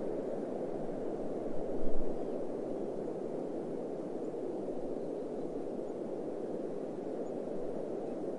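Steady, low wind rushing, with a brief low rumble about two seconds in.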